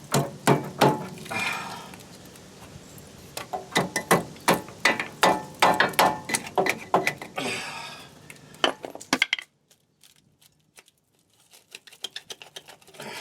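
Repeated sharp metal clinks and knocks as the rusted, scaly remnants of a brake backing plate are handled and worked off an axle end. The clinking stops about nine seconds in and resumes briefly near the end.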